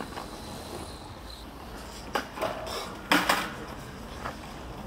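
Metal chains of a playground swing clinking and rattling as someone climbs onto the swing, in a few short clatters, the loudest just after three seconds in.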